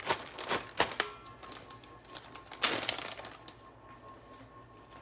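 Plastic zip-top bag crinkling and rustling as it is handled, in a few short bursts in the first second and a longer one about two and a half seconds in.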